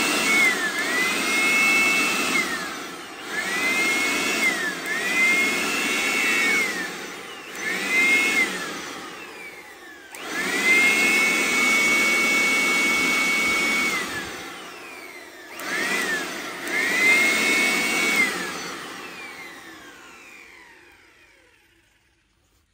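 Total 400 W electric aspirator blower switched on and off in about eight short bursts. Each time, its motor whine rises as it spins up and sinks as it is released, with one longer run of about three and a half seconds midway. Near the end it spins down to a stop.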